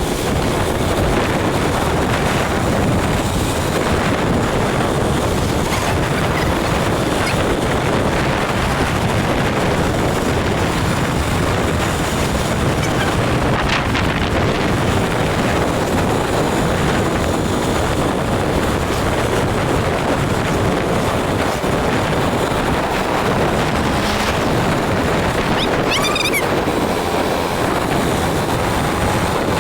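Steady rushing noise of a moving vehicle, with wind buffeting the microphone. A brief high squeak comes near the end.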